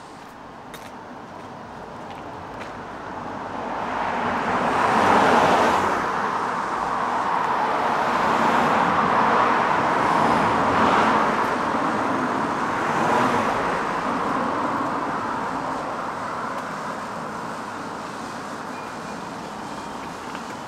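Road traffic passing close by, one vehicle after another, with tyre and engine noise. It swells about four seconds in and slowly dies away toward the end.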